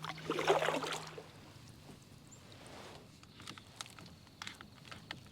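Kayak paddle stroke swishing and splashing through the water in the first second, followed by quieter water drips and small scattered clicks.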